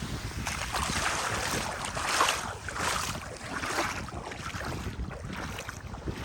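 Small sea waves breaking and washing up the sand in several swells, with wind buffeting the microphone in a low rumble.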